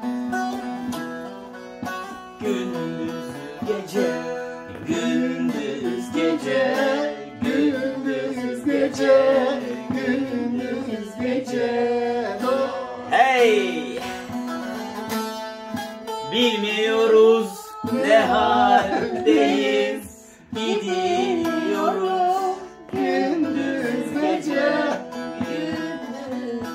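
Bağlama (long-necked Turkish saz) played live: a plucked folk melody over a steady drone, with a voice singing along.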